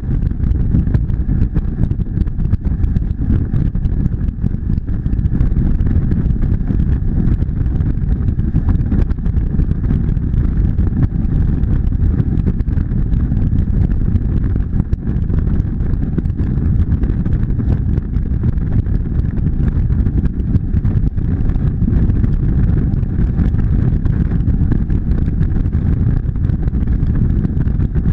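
Motorcycle cruising at steady highway speed: a constant low rumble of wind on the action camera's microphone over the engine's even drone.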